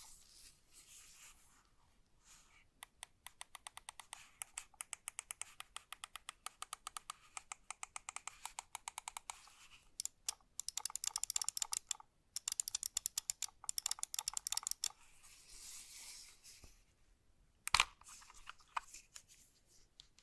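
Rapid runs of small plastic clicks from a gaming mouse's buttons being pressed over and over, several clicks a second, with short pauses between runs. Soft rustling of handling comes before and after, and one sharper knock comes near the end.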